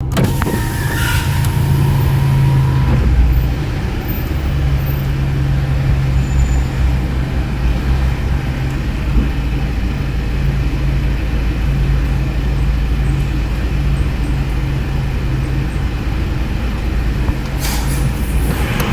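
A large road vehicle's engine running with a steady low hum, with a brief hiss near the end.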